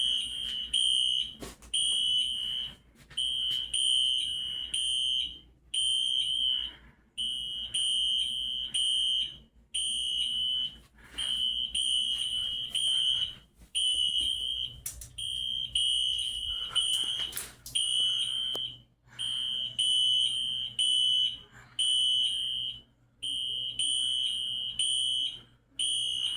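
Several fire alarm sounders going off together: a high, piercing tone pulsing on and off in uneven, overlapping bursts of about a second each.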